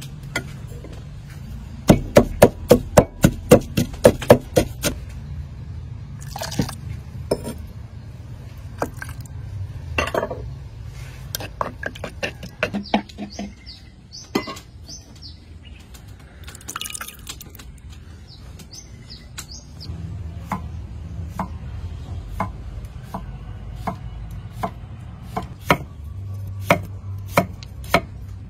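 A pestle pounding chili, sugar and seasoning in a wooden mortar, a quick run of strikes about three a second. Scattered taps and clicks of kitchen work follow, with a few bird chirps. Near the end a cleaver chops cucumber on a wooden board.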